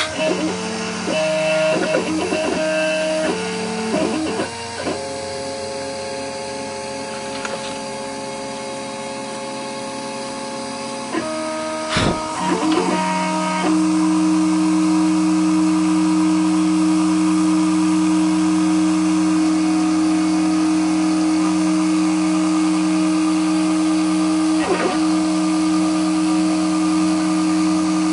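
Homemade mini CNC machine running, its motors giving a steady whine that jumps to new pitches several times in the first half, with short clicks at the changes. After that it holds on one steady tone.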